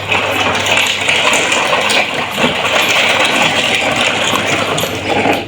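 Many small toy vehicles rattling and clattering together in a loaded toy truck: a dense, steady clatter that stops abruptly near the end.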